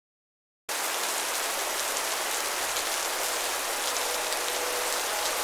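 Steady rain falling, starting suddenly under a second in as an even hiss. Faint held musical notes come in about two-thirds of the way through.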